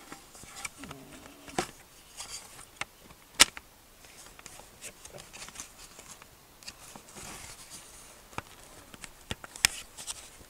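Plastic parts of a welding helmet being worked into place by hand: scattered clicks, knocks and light scraping as a stubborn cover and lens are pushed into the frame, with one sharp snap about three and a half seconds in.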